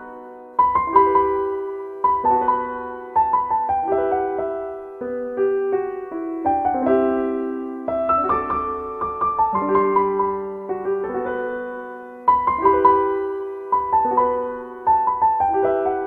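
Background piano music: a slow melody of struck notes that ring and fade, a new phrase starting every few seconds.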